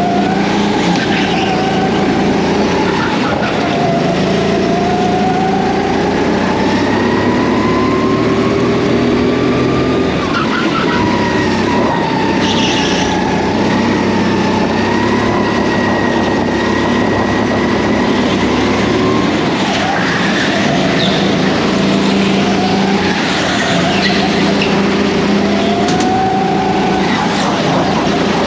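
Racing kart motor running hard, its pitch climbing over several seconds and dropping back a few times as the kart speeds up and slows for corners.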